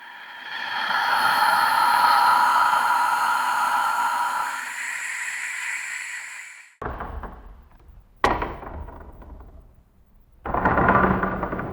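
A run of separate horror sound effects. First comes a long swelling rush with several held tones, which cuts off abruptly after about six seconds. It is followed by a heavy hit with a low rumble, a sharp crack about a second later that dies away, and a new noisy sound with held tones starting near the end.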